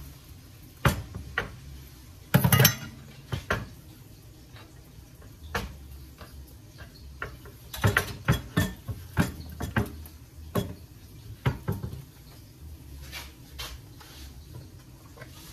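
Kitchen utensils knocking and clinking at irregular intervals: a knife on a wooden cutting board and a spoon against a ceramic bowl as diced pepper is scraped in. There is a brief, louder scrape about two and a half seconds in, and a quick run of clinks around eight to ten seconds.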